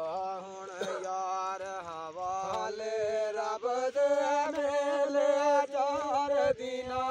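A man singing a Gojri folk verse (bait) unaccompanied, holding long wavering notes without words in a drawn-out line, broken by short breaths a few times.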